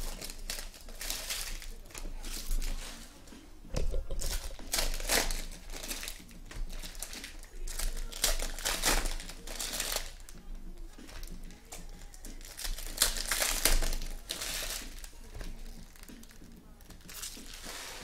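Foil wrappers of Panini Contenders football card packs crinkling in irregular rustles as the packs are torn open and the cards are handled.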